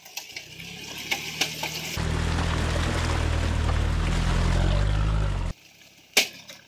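Off-road vehicle engine revving hard under load while driving through mud and water, with splashing and spraying. The engine gets much louder about two seconds in, then everything stops abruptly, followed by a single sharp click near the end.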